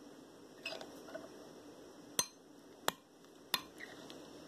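A metal spoon clinking against a glass bowl while stirring slime: a few soft knocks, then three sharp clinks about two-thirds of a second apart.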